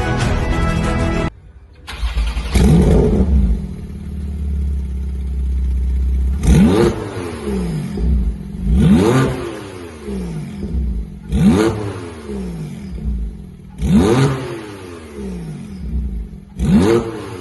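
Porsche 911 Turbo Manhart TR700's twin-turbo flat-six starting with a quick flare, settling into a low idle, then blipped up and back down five times, about every two and a half seconds. Background music plays for the first second, then cuts off.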